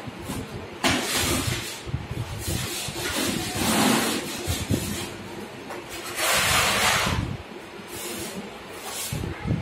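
Wet wall putty being spread across a bare cement wall with a putty blade: several scraping strokes, each lasting a second or two.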